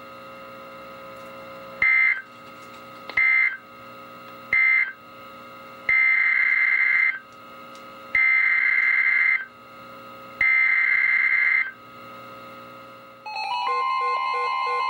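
NOAA Weather Radio SAME data bursts: three short buzzy end-of-message bursts, about a second apart, close the marine warning. Then come three longer header bursts of about a second each, two seconds apart, that open the next warning, a severe thunderstorm warning. Near the end the alert's attention tone starts, a steady long tone with a pulsing beep over it.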